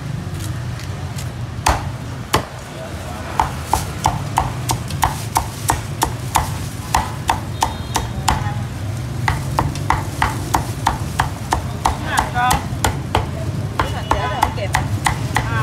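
A meat cleaver chopping crisp-skinned Vietnamese roast pork (heo quay) on a thick round wooden chopping block: a steady run of sharp chops, about two to three a second, with a brief pause about halfway through.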